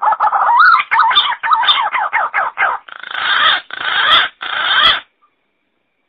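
Green pigeon (punai) calling: about three seconds of quick, wavering whistled notes, then three harsh rasping notes. The call stops abruptly about five seconds in.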